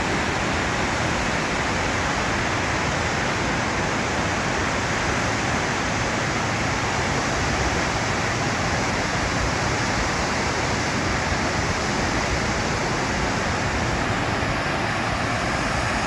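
Multi-tiered waterfall cascading over rock ledges: a steady, even rush of falling water.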